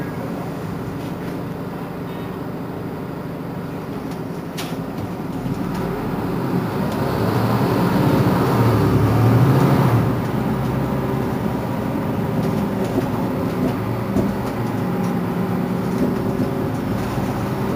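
Mercedes-Benz Citaro C2 city bus heard from inside the cabin, its engine pulling the bus away. The sound grows louder from about five seconds in, peaks around nine seconds, then eases back to a steady run. A single sharp knock comes about four and a half seconds in.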